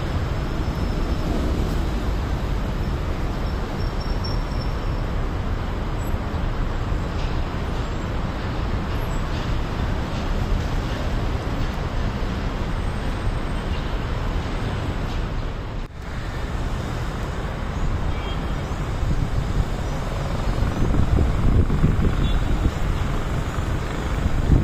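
Steady city traffic noise, a continuous low rumble of road vehicles, with a short drop in level about two-thirds of the way through.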